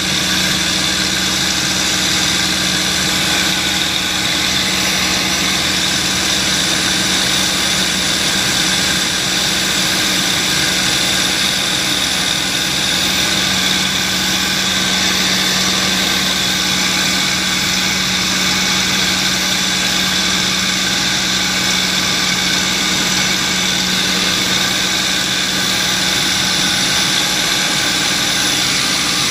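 P-51D Mustang's Packard Merlin V-12 engine running steadily in flight, heard with heavy wind rush over the airframe, during a banking descent on the approach to landing. The drone holds an even level throughout, with no change in engine note.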